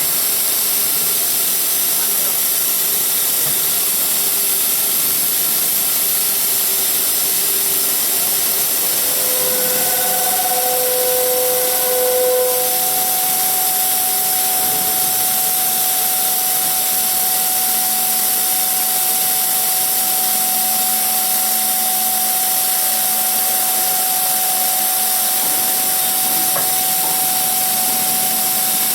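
CNC beam drilling machine running during a drilling test: a steady, loud hiss with machine whine, a steady tone setting in about ten seconds in and holding on.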